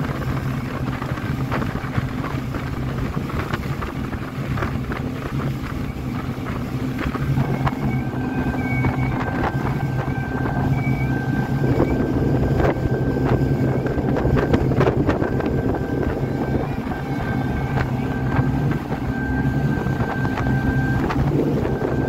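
Speedboat engine of a RIB running steadily at speed, with water rushing and knocking against the hull and wind on the microphone. A thin steady whine joins about a third of the way in and stops shortly before the end.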